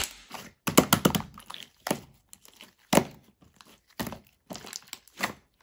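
Irregular crinkling and crunching strokes with soft knocks, about a dozen short bursts with pauses between them.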